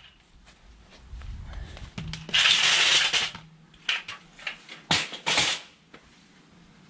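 Handling noise from a metal-framed mesh panel: a rough scraping rattle about two seconds in, a few light clicks, then two more short scrapes about five seconds in, as the panel is picked up off the concrete and carried.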